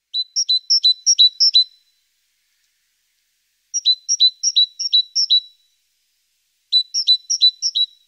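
A small songbird singing three short phrases, each a quick run of four to six two-part notes, high then lower, about four notes a second.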